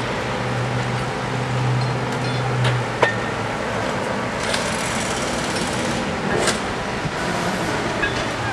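Heavy track-construction machinery running steadily, with a low engine hum that fades about three seconds in. A few sharp metal clanks from work on the rails come through, the loudest about three seconds in.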